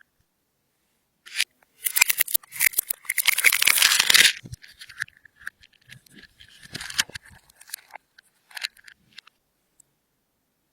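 Slime being worked by hand, giving sticky crackling and popping clicks. The crackling is dense for a couple of seconds early on, then thins to scattered pops and fades out near the end.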